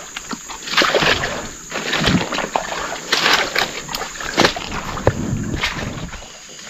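Feet wading and squelching through deep swamp mud and water, with irregular splashy sloshes about once a second as the men slog through under a heavy load.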